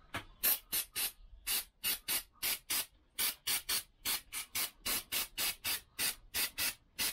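Aerosol cleaner sprayed in quick short spurts, about three a second, each a brief hiss.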